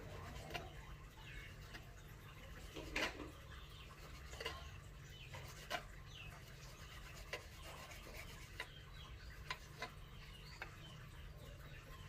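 A knife blade scraping and tapping on a wooden chopping block while cutting up raw fish. The sound is faint, with irregular sharp taps; the loudest comes about three seconds in.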